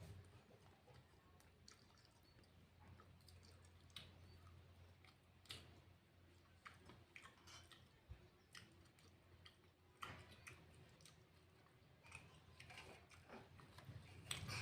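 Faint chewing of a mouthful of rice and vegetables, with small wet mouth clicks coming at irregular intervals over near silence.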